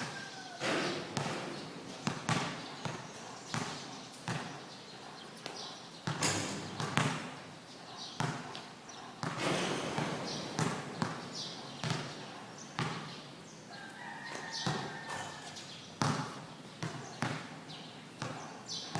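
A basketball bouncing on the court again and again at an uneven pace during a game, with occasional short high squeaks and voices in the background.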